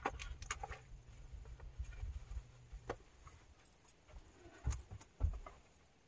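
Close handling noises right by the microphone: rubbing and a low rumble with scattered small clicks and taps, then two louder low thumps near the end.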